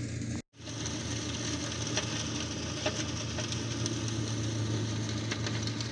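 John Deere tractor running steadily with its rear-mounted shredder mulching olive prunings: a constant engine hum with a hiss above it and a few faint ticks. A short silent gap breaks it about half a second in.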